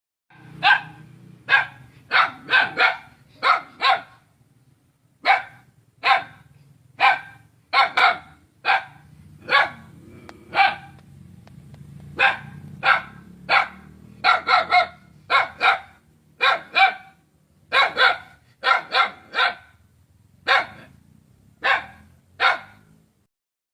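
Dog barking over and over, a long series of sharp barks in irregular groups, with a low rumble underneath between barks.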